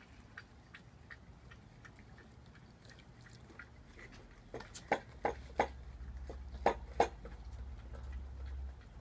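A dog's jaws snapping shut at falling snowflakes: a run of sharp clacks about halfway through, over faint light ticking.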